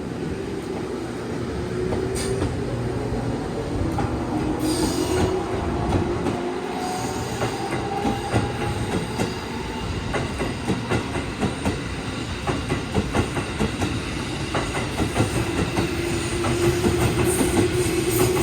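JR 415 series 1500 electric train heard from inside the car while running: the motor whine rises slowly in pitch, and again near the end. The wheels clack steadily over the rail joints under a constant rumble.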